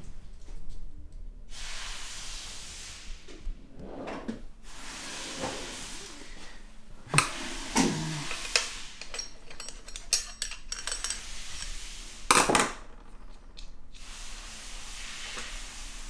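Hand tools and loose metal parts clinking and knocking on a bare twin-cam cylinder head as it is dismantled on a steel bench. There are scattered sharp knocks, the loudest about seven and twelve seconds in, and two stretches of steady hiss.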